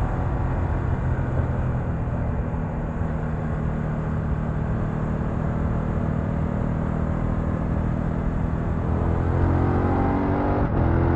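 BMW F900XR's parallel-twin engine running steadily while riding, over a steady rush of wind and road noise. Near the end the revs climb, with a brief break in the sound shortly before the end.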